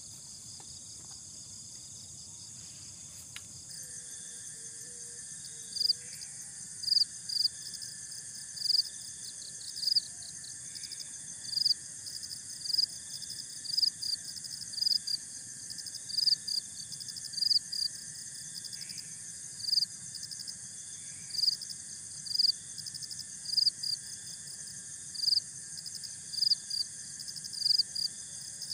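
Night insect chorus: a steady high buzzing of crickets, with a louder short chirp repeating about once a second from about six seconds in. A steady lower-pitched tone joins at about four seconds.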